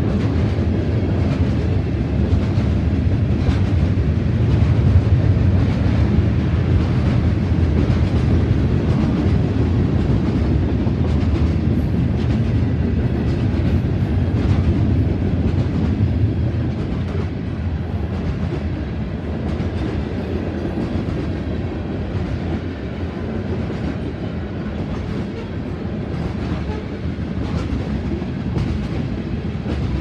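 Freight cars of a manifest train rolling past: a steady rumble of steel wheels on rail with the clickety-clack of wheels over rail joints. It eases off a little about halfway through.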